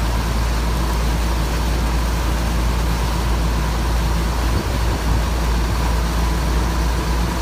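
A moving vehicle, with a steady deep rumble under a rushing hiss of road and wind noise. There is a brief jolt in the sound a little after halfway.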